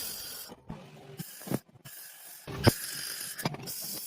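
Welding: repeated bursts of hissing and crackle that start and stop several times, with a few sharp clicks between them.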